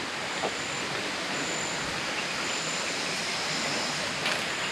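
Steady rushing of a flowing forest stream. A short, high-pitched chirp repeats about once a second above it.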